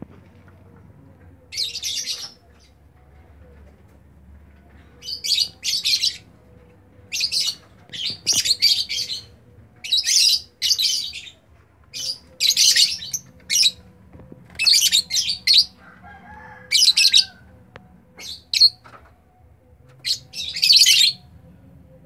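Lovebirds calling: short, shrill, harsh screeches repeated every second or two, some coming in quick pairs.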